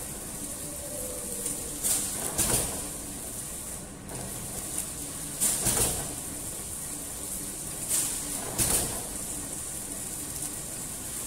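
CB-450XWS flow-wrapping machine running as a packing line: a steady mechanical hum with a pair of short bursts of noise about every three seconds as each bread-stick pack passes the end sealer and is sealed and cut.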